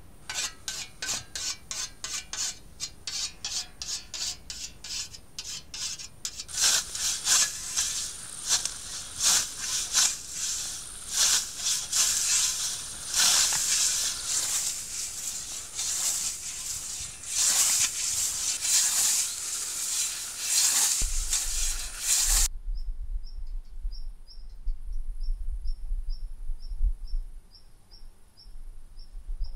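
Tall dry grass being cut by hand with a swung blade: a fast, even run of swishing strokes, about three a second, that turns into denser, louder swishing after about six seconds and stops abruptly a few seconds before the end. In the last few seconds a faint high chirp repeats about twice a second over a low rumble.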